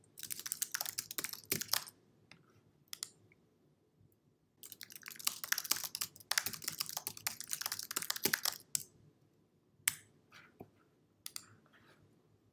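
Typing on a computer keyboard in two quick runs of keystrokes, the second about four seconds long, followed by a few single clicks near the end.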